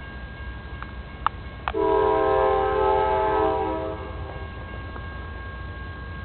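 Diesel freight locomotive's air horn sounding one blast of about two seconds, several notes together in a chord, over the low rumble of the passing train. A couple of sharp clicks come just before the horn.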